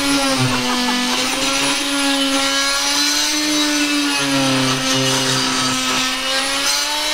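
An electric motor running steadily with a humming pitch that wavers slightly up and down.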